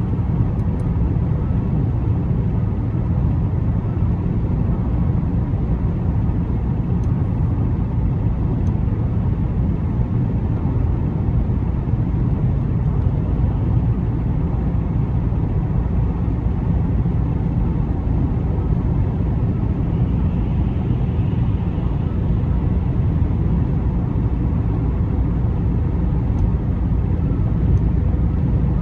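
Steady low rumble of a car driving along the road at an even speed: tyre and engine noise.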